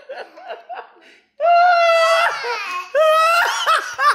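A man laughing hard: a few faint gasps, then about a second and a half in two long, high-pitched bursts of laughter.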